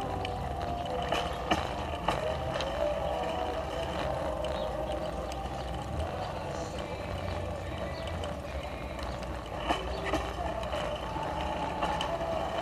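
Steady rumble of wind and tyres on pavement, heard through a bicycle-mounted camera while riding, with a few sharp knocks from bumps.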